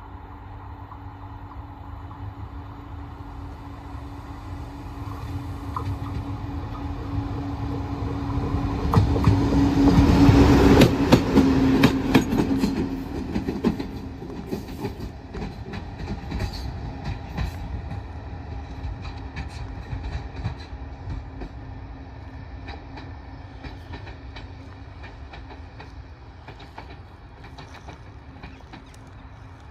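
A train passing on the line: rumble and wheel clicks over the rail joints build to a peak about ten seconds in, then fade slowly. A steady low hum runs under it.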